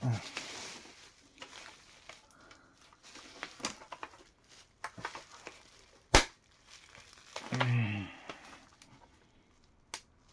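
Plastic laptop casing being pried apart by hand: scattered creaks, clicks and crackling, with one sharp snap about six seconds in, as of a plastic clip breaking.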